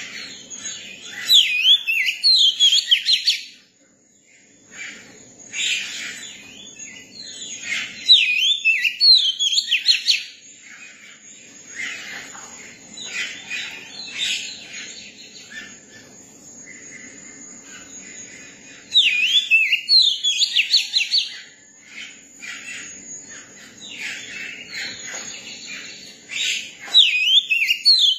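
Young oriental magpie-robin singing in bouts of quick, varied whistled phrases, with four louder bursts separated by quieter pauses of a few seconds, over a faint steady high-pitched tone.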